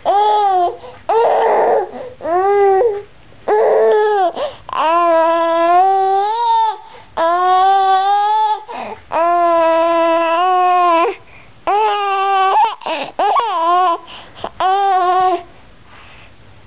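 An infant's happy vocalising: a string of high-pitched squeals and calls with short pauses between them. The longest, in the middle, are drawn-out calls held fairly level for a second and a half to two seconds each.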